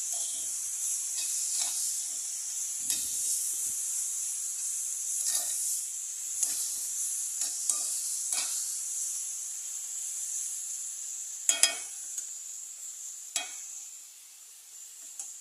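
Chorizo with onion, chile and tomatoes sizzling in a frying pan, with a utensil scraping and clicking against the pan as it is stirred every second or two. Two sharper knocks come about three-quarters of the way through, and the sizzle fades near the end.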